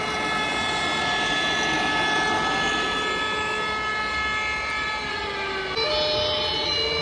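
Sirens of model fire trucks sounding together as long held tones that slowly fall away about five seconds in. A two-tone European-style siren then starts, switching between two notes about once a second.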